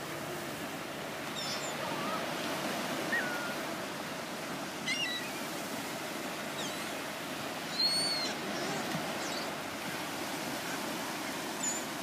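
Steady wash of surf breaking on the beach, with several short, high calls from gulls scattered through it, the loudest about eight seconds in.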